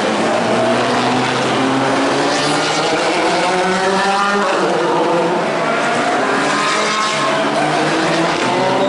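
Several Super GT race cars' engines running in a slow parade procession, their overlapping notes climbing gently as they pull away, dropping about halfway through and climbing again.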